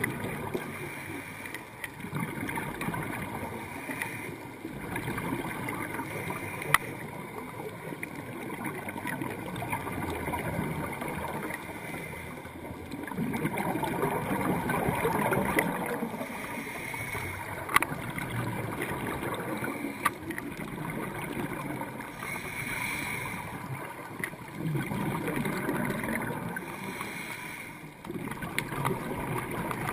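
Underwater sound picked up by a diving camera: a scuba diver's breathing through the regulator, with exhaled bubbles gurgling in swells every few seconds. Occasional sharp clicks.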